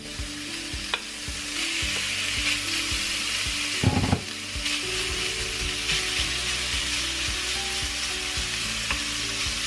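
Sliced bacon sizzling and frying in a hot cast iron skillet, the sizzle thickening as the strips go in and are pushed around with a wooden spoon. A brief knock comes about four seconds in.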